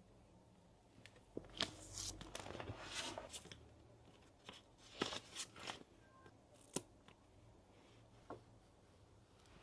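Paper handling in a small room: crisp rustling and crinkling of journal pages and collage paper in two short bursts, then a couple of sharp clicks.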